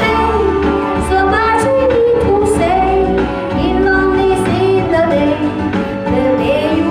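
A woman singing a melody into a handheld microphone over amplified backing music with a steady bass line.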